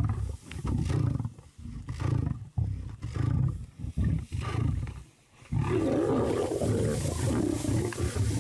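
Lions growling and snarling: a run of short, deep growls about a second apart, then a brief lull and a continuous louder snarling from a little past halfway.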